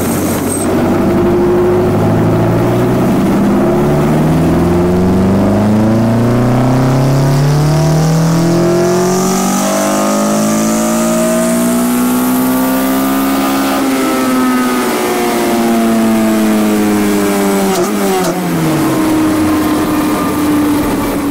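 Toyota 4A-GE twin-cam four-cylinder engine running, heard at its open throttle body: the revs climb slowly for about twelve seconds as the throttle opens, then drop back over a few seconds and settle at a steady speed near the end.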